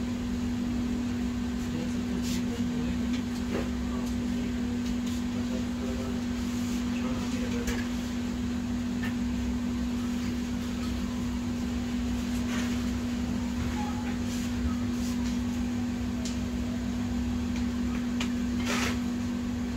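A steady electrical or mechanical hum at one low pitch, with a few scattered small clicks and taps.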